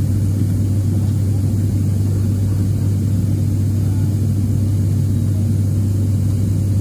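Steady turboprop drone heard from a seat beside the propeller of an ATR airliner in flight: a strong deep hum from the propeller with a rushing engine and airflow noise beneath it.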